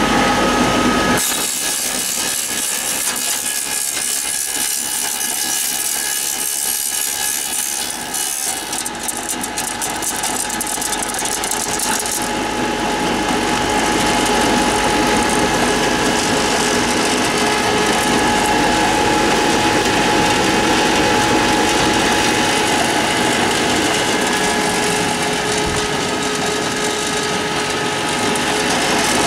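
Wooden BBQ stick sharpening machine running steadily: a motor hum under the whir of the cutter grinding points onto the sticks. The sound shifts abruptly about a second in and again around twelve seconds in.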